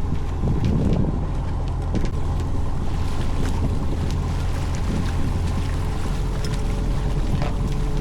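Fishing boat's engine running steadily: a low, even drone with a faint steady hum above it and a few light clicks.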